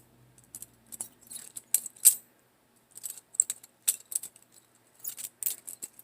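Balisong comb being flipped through tricks: its swinging handles and latch clack and rattle in an irregular string of sharp clicks, the loudest about two seconds in.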